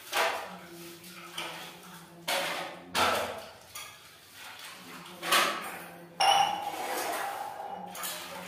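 A series of sharp knocks and clatters, one every second or so, with a ringing tone held for about a second and a half starting about six seconds in.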